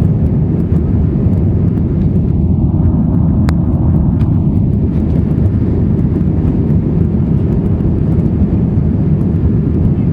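Airbus A320-232 in flight, its IAE V2500 turbofans and airflow making a steady, loud, low roar with no change in pitch.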